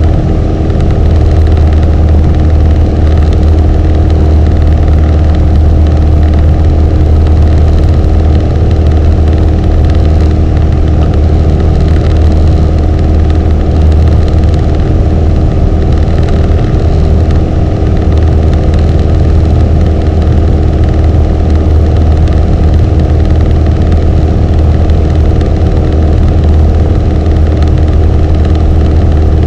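Piper PA-28's single piston engine and propeller droning steadily in flight, heard inside the cabin: a loud, even drone with a deep hum and a few steady higher tones, unchanging throughout.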